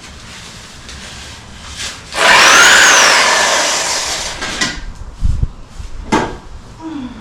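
A loud scrape or drag lasting about two seconds, with a squealing note that rises and falls, followed by a few sharp knocks and a low thud: rough material being dragged or pried loose during yard clearing.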